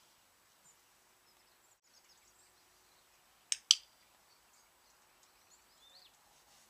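A sharp double click, like the press and release of a training clicker, about three and a half seconds in. Faint bird chirps in between.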